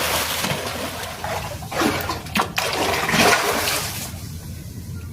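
Grouper thrashing and splashing at the water's surface as they scramble for fish thrown in as feed, with several sharp splashes before the water settles near the end.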